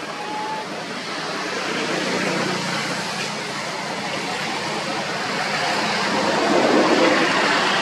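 Leaves and branches rustling steadily as a macaque climbs through the tree canopy, growing louder toward the end. A brief high squeak sounds just after the start.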